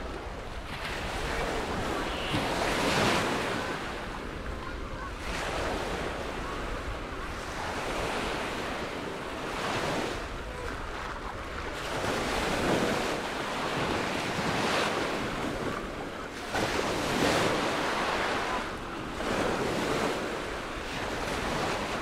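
Small Mediterranean waves breaking and washing up the beach, a new wash swelling every two to three seconds, with wind buffeting the microphone as a low rumble.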